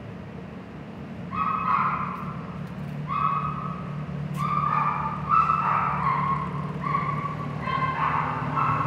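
A dog yipping and whining in a string of short, high, level-pitched cries, starting about a second and a half in, over the steady low hum of idling bus engines.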